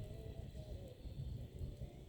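Bonfire of pruned apple branches burning: a steady low rumble with faint crackles, and a faint wavering tone in the background.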